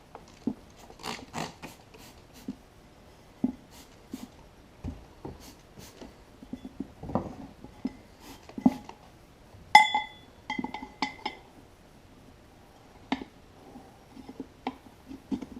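Irregular knocks and clinks of hand tools against a metal mower wheel rim as a stiff old tire is worked off. A sharp ringing metallic clink comes about ten seconds in, followed by a few shorter ringing clinks.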